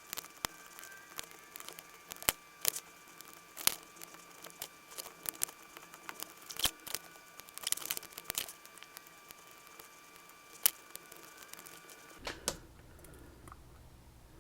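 Irregular sharp clicks and small scrapes of lock picks working inside an Assa Twin 6000 lock, some clicks much louder than the rest.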